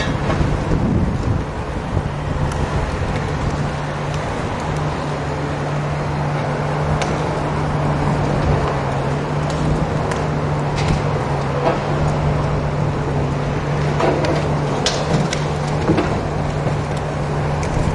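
High-reach demolition excavator's engine running steadily as its crusher jaws work at a concrete building, with scattered sharp cracks and clatter of breaking concrete and falling debris.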